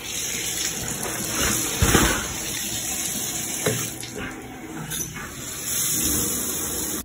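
Shower water running into a bathtub, a steady rushing spray, with a few knocks as the fixture is handled. It cuts off suddenly at the end.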